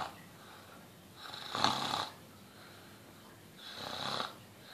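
A seven-year-old boy imitating his mother's snoring: two breathy, noisy snores about two seconds apart.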